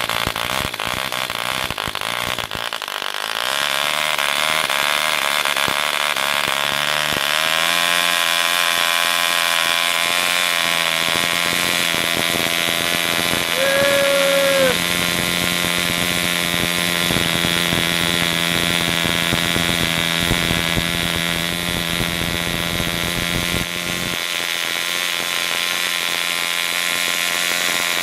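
Small model airplane engine running at high speed with a steady pitched drone; it speeds up a few seconds in and again about seven seconds in, then holds a steady pitch. A short chirp-like tone sounds briefly about halfway through.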